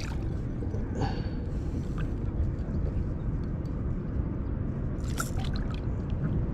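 A small fish splashing at the water's surface while it is held in fishing pliers, with a few brief splashes about a second in and about five seconds in, over a steady low outdoor rumble.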